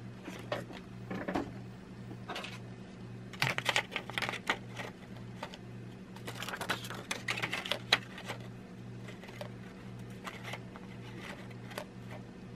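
Hands handling a receiver's dial vellum sheet and fitting it into the metal dial frame: irregular rustling, scraping and small clicks, in clusters about four seconds in and again from about six to eight seconds. Under it runs a low, pulsing hum.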